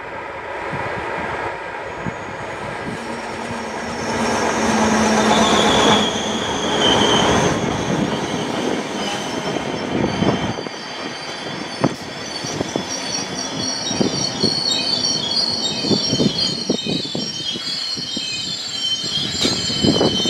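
Renfe electric multiple unit passing close at low speed, its wheels squealing in high steady tones from about four seconds in, with the clack of wheels running over rail joints and points.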